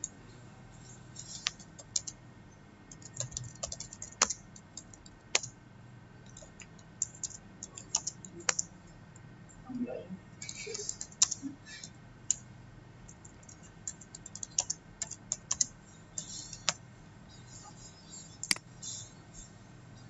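Computer keyboard typing in irregular bursts of keystrokes, with pauses between words. Near the end, a couple of sharper single clicks.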